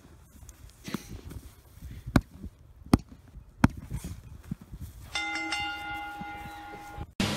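Three sharp slaps on a foam gym mat, about three-quarters of a second apart: a referee's three-count for a pin. About five seconds in, a match bell rings steadily for about two seconds, signalling the end of the match.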